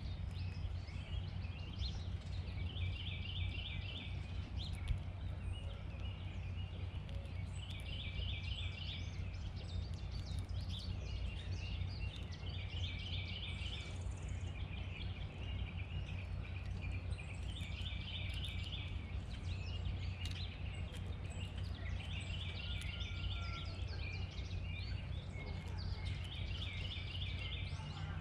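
A songbird singing the same short song of rapid repeated notes about six times, roughly every five seconds, over a steady low rumble.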